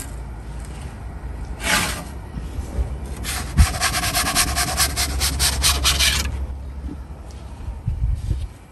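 Wooden pizza peel rasping across the baking stone of an Ooni Koda 16 gas pizza oven as the pizza is jerked off it: a short scrape, a knock, then about three seconds of quick rasping strokes that stop. Under it runs the low steady rush of the gas burner on full flame.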